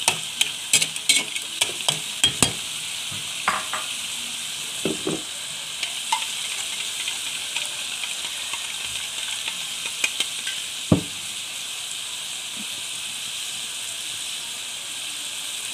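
Mussels and tofu cubes sizzling steadily in hot oil in a wok. In the first couple of seconds a spatula stirs them, knocking and scraping against the wok and the mussel shells; after that the sizzle goes on alone, broken by a few light clicks and one sharp knock about eleven seconds in.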